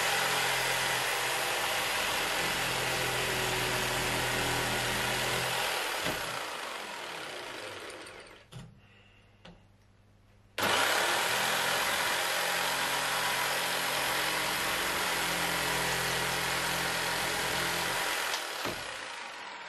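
Corded jigsaw cutting through a laminate floorboard in two passes. The first cut runs steadily for about six seconds, then trails off. After a short stop the saw starts again sharply, about ten seconds in, and runs for about eight seconds before trailing off near the end.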